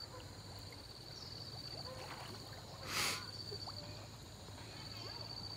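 Pond water stirred by a man wading chest-deep and swinging a long pole, with faint lapping and one short splash about three seconds in. A steady high whine runs underneath.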